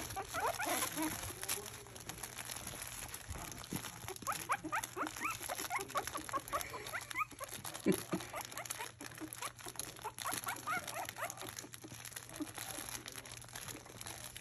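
Young Havanese puppies squeaking and whimpering in quick runs of short rising cries, with the crinkle toy rustling under them as they crawl over it.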